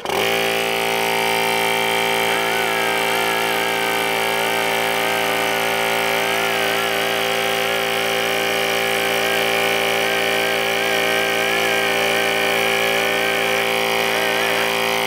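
Small electric air compressor starting suddenly and then running at a steady pitch.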